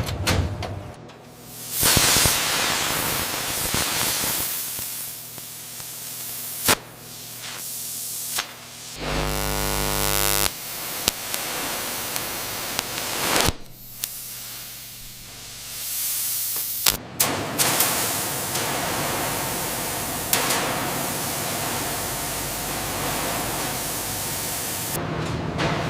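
Factory machine noise in a string of short edited shots: mostly a steady hiss, broken by sharp clicks and abrupt cuts, with a brief buzzing hum about nine seconds in.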